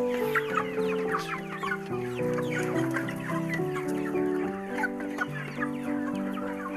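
A large flock of chickens calling, a dense chorus of many short overlapping calls, over background music with held, changing notes.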